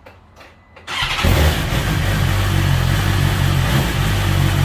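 2020 BMW S1000XR's inline-four engine started: the starter turns it over briefly about a second in and it catches almost at once, then settles into a steady idle.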